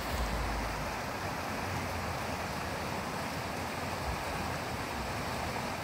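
Creek swollen with winter runoff, its water rushing in a steady, even hiss.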